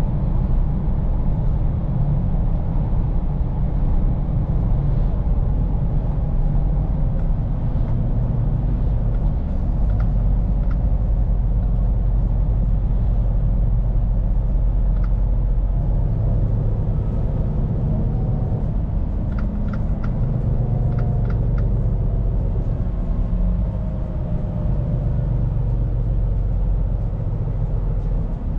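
Scania P410 truck's six-cylinder diesel engine running steadily while driving, with road noise over a low engine drone. A short run of faint ticks comes about two-thirds of the way through.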